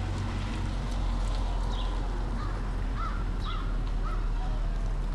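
American crow cawing, three short caws about three seconds in, over a steady low rumble. A high, short chirp repeats about every second and a half to two seconds.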